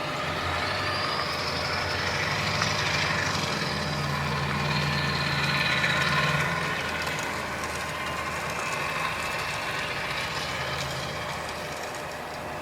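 A motor running steadily with a low hum and a higher whine, swelling to its loudest about six seconds in and then easing off.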